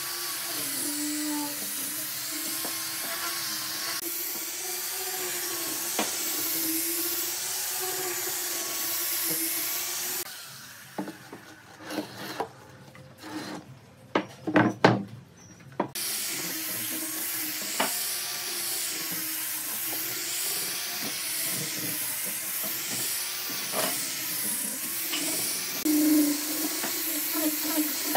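Handheld angle grinder with a sanding disc running against a wooden lattice panel: a steady motor hum over a rasping hiss of abrasive on wood. Around ten seconds in it stops for about six seconds, and the wooden panel is knocked and shifted on the bench. Then the grinder starts again and sands until the end.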